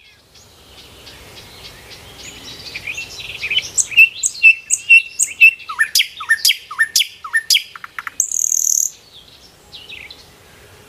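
Birds chirping and singing: a run of quick repeated notes, then a series of loud downward-sweeping whistles, and a short buzzy high note about eight seconds in.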